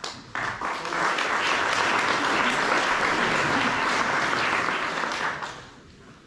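Audience applause from many people clapping. It builds within the first second and dies away about five and a half seconds in.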